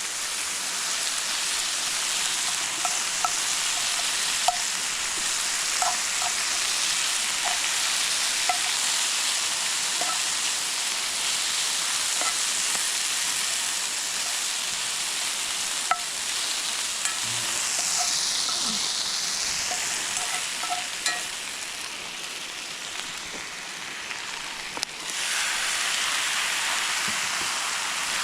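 Sliced peppers and onions sizzling in hot avocado oil, stirred with a spatula that taps and scrapes the pan every second or so. About 25 seconds in the sizzle suddenly changes and grows brighter.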